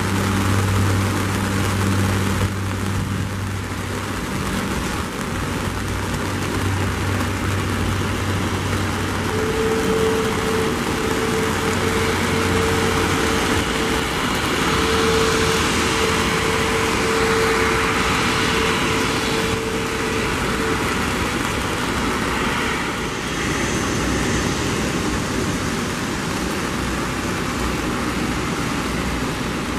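Rolls-Royce Trent 700 turbofans of an Airbus A330-200F freighter running at taxi power: a steady jet rumble and hiss with a held whine, swelling in the middle as the aircraft comes nearer.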